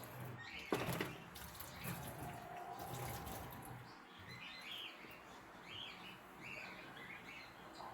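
Small birds chirping in a run of short, quick calls over a faint low hum, with a single knock about a second in.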